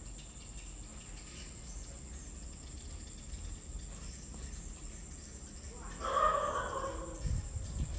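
A chicken calling once, a drawn-out call of about a second, a little after the middle, over a faint low background rumble.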